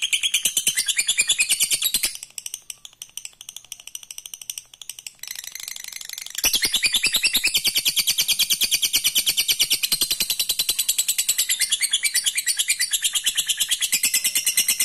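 Lovebird's ngekek, a long, rapid chattering trill of high chirps. It breaks off about two seconds in, gives way to softer scattered chirps, and comes back at full strength after about six and a half seconds.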